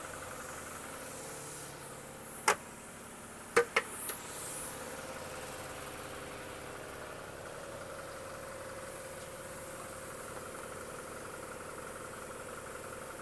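Toyota Hilux 2GD four-cylinder turbodiesel idling steadily, warmed up and left running for an automatic transmission fluid level check. A few sharp clicks come about two and a half and three and a half seconds in.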